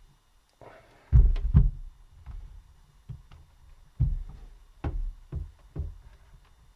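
Screwdriver prying a laptop keyboard off its stiff plastic latches: a series of irregular knocks, thuds and clicks, loudest about a second in and again about four seconds in.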